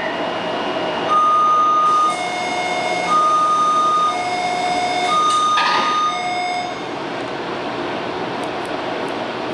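Two-tone door-closing warning chime inside a Taipei Metro C321 train, alternating a high and a low note about once a second for three rounds over steady cabin hum. A short rush of noise comes near the end of the chime, followed by the steady running sound of the train.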